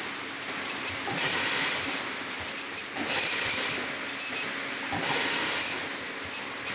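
Automatic triangle nylon tea bag packing machines running, with a steady mechanical clatter and a hissing burst about every two seconds, three times, on each cycle.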